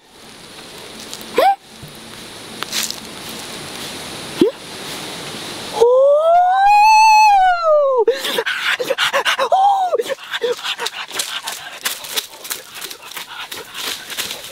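An animal's whining calls: two short rising whines, then one long call of about two seconds that rises and falls, then a run of quick short yelps, with a scatter of clicks near the end.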